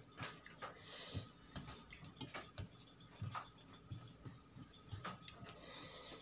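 Close-up eating sounds: chewing with irregular wet mouth clicks and smacks, a few a second, and a couple of brief hissy slurps.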